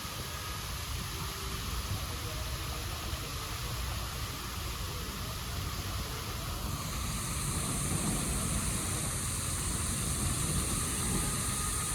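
Heavy rain falling as a steady hiss, with a low rumble underneath; it grows a little louder and brighter about seven seconds in.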